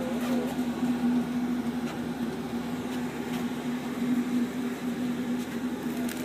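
A navy ship's onboard machinery humming steadily, with one constant low tone over an even mechanical hiss.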